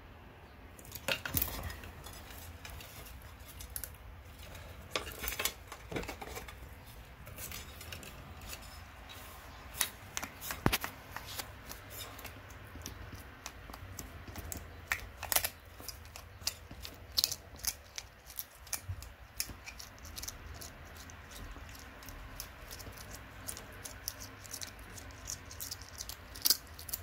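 Argentine black and white tegu crunching a giant African land snail's shell in its jaws: irregular sharp cracks and crunches, a few much louder than the rest, as the shell breaks.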